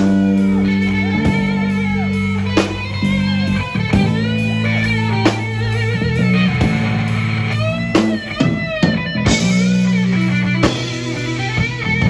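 Rock-style music: an electric guitar playing lead lines with bent, gliding notes over a steady bass guitar and drums.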